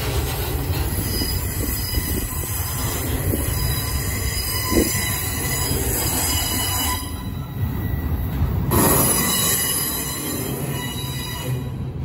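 Double-stack container well cars of a slow freight train rolling past with a steady low rumble and a high-pitched wheel squeal. The squeal drops away briefly a little past the middle and then returns. There is a single clunk about five seconds in.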